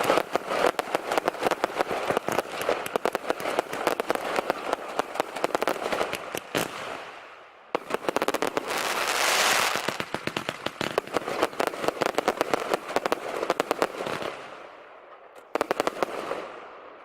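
Fireworks crackling in rapid, dense volleys. They stop briefly about seven seconds in and come back with a rushing hiss under the crackle. The crackling dies away near the end after one last short burst.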